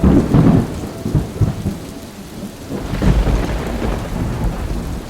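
Thunderstorm: thunder rumbling over steady rain, with a loud crash at the start that dies away and a second low rumble about three seconds in.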